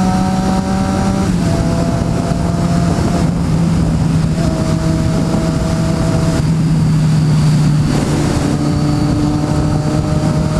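Motorcycle engine pulling steadily under way, with wind rushing over the microphone. The engine note drops in pitch at gear changes about a second in and again about eight seconds in, rising slowly between them.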